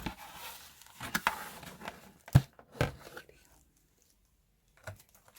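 A packaged box being opened by hand: a few separate knocks and clicks with light rustling of packaging, the loudest a sharp knock about two and a half seconds in, then a short lull and a few faint rustles near the end.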